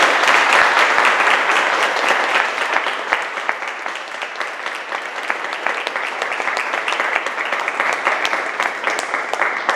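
Audience applauding, loudest at the start and easing off slowly.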